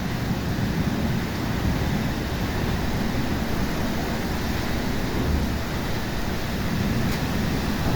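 Steady rushing of rain and wind in a thunderstorm, with a heavy low rumble underneath.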